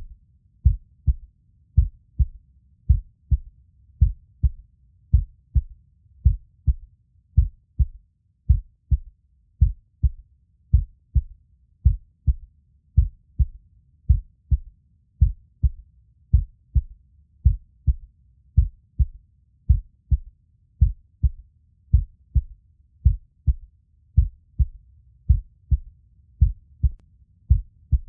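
Heartbeat sound, a steady rhythm of deep, paired lub-dub thumps over a low hum.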